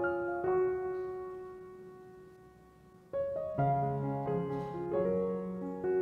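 Background piano music. A held note fades away for a couple of seconds, then the piano comes back in with fuller chords and a deeper bass line.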